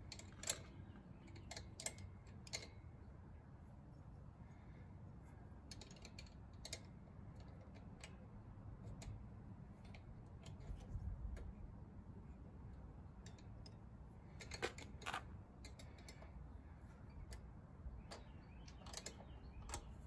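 Sporadic light clicks and taps of hand tools and small metal parts being handled while studs are fitted on a small engine's carburetor, with a few sharper clicks scattered through, over a faint low hum.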